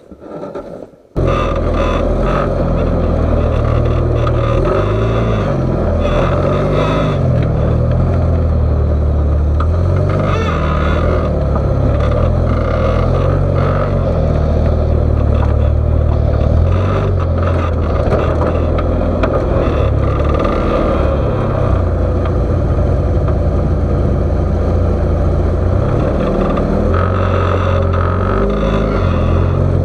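Rock crawler buggy's Ecotec engine running steadily as the buggy crawls, its low note wandering slightly with the throttle. It starts suddenly about a second in.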